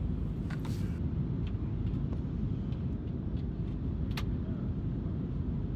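Airliner cabin noise in flight: a steady low rumble of the engines and airflow, with a faint click about four seconds in.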